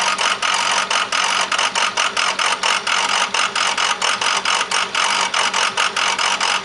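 2005 Ford 6.0L Power Stroke V8 diesel idling with a loud clatter that pulses about five or six times a second at uneven spacing: an erratic idle that shows up only with an SCT tune loaded.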